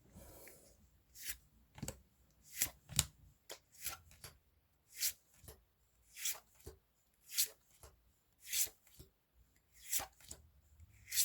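Trading cards from a freshly opened Pokémon booster pack being slid off the stack one at a time, a short papery swish or snap with each card, about one or two a second.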